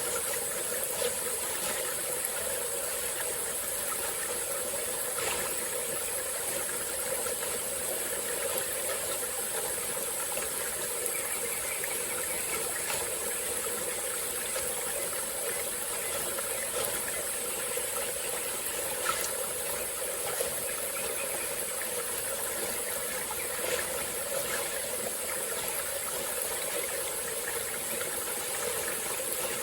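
Small tropical forest stream flowing steadily, with a constant high-pitched hiss of insects over the water and a few faint clicks.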